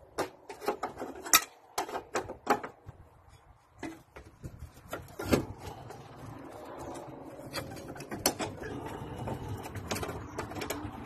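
Sharp metallic clicks and knocks of hand tools working on engine parts: a quick irregular run of clicks in the first three seconds, then scattered knocks over a low steady rumble.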